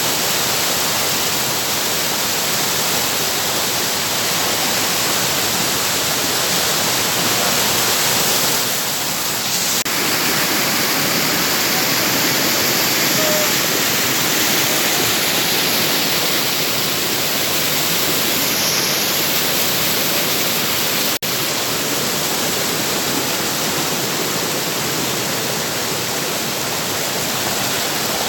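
Rushing water of a river cascade: a loud, steady roar.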